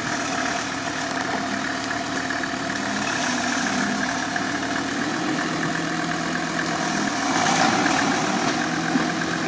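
Mercedes-based off-road prototype's engine idling steadily, its pitch stepping up or down a few times.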